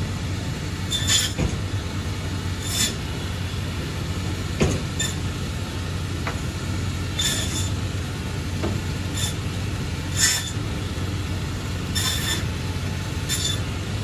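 Meat band saw running with a steady motor hum, its blade slicing through bone in short high-pitched rasps every second or two as each piece is pushed through.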